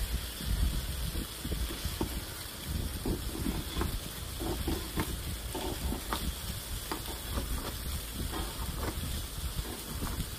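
Pork belly (samgyeopsal) sizzling as it grills in a pan: a steady hiss with many small crackles and pops from the fat.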